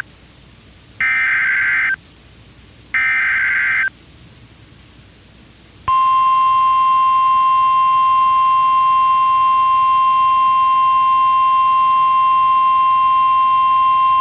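NOAA Weather Radio EAS activation. First come two roughly one-second bursts of SAME digital header data, one about a second in and one about three seconds in. About six seconds in, the steady 1050 Hz warning alert tone begins, announcing a flash flood warning.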